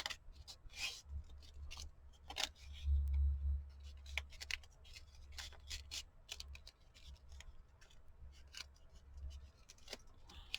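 Scissors snipping paper in short, irregular cuts, with some paper rustling, over a low steady hum.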